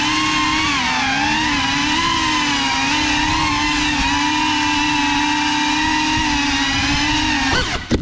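GEPRC Cinelog 35 cinewhoop's four brushless motors and ducted propellers whining steadily, the pitch wavering up and down as the throttle changes. Near the end the whine falls away with a sharp knock as the drone crashes under a chair, and the motors cut out.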